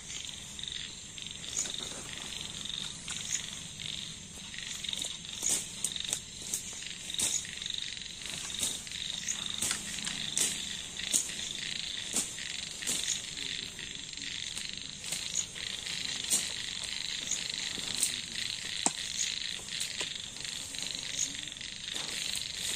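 Night chorus of frogs and insects: a steady high-pitched trilling with many short, sharp clicks or calls scattered through it.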